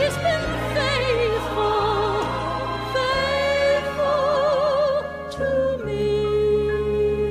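A woman singing a slow gospel ballad with a strong vibrato over instrumental accompaniment, holding long notes.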